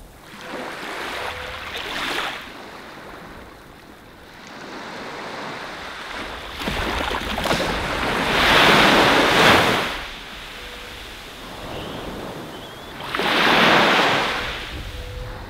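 Small waves breaking and washing up a beach, surging and falling back three times, the loudest about nine seconds in.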